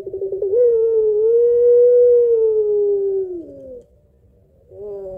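Puter pelung (white Barbary dove) cooing: a quick stuttering start, then one long drawn-out coo held about three seconds that falls in pitch at its end. A short pause follows, and the next coo begins near the end.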